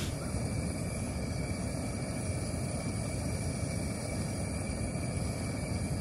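Strong wind buffeting the microphone: a steady low rumble of wind noise.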